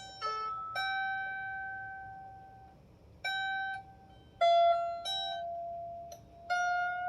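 Strings of a 16-string lyre harp plucked one at a time during a rough tuning: about six single notes, each ringing out and fading before the next.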